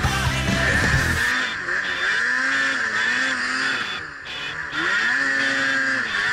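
Rock music cuts off about a second in. Then a Ski-Doo Summit 800 E-TEC two-stroke snowmobile engine revs up and down in repeated blips, its track spinning in deep snow while the sled is stuck on its side.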